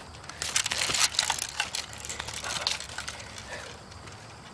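Crunching and crackling, dense for the first few seconds and then thinning out, like footsteps through dry leaves and brush.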